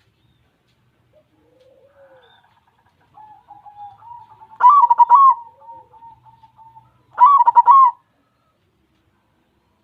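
White zebra dove (perkutut) cooing. Soft cooing starts about three seconds in, and two loud phrases of its song come about two and a half seconds apart, one past the middle and one near the end.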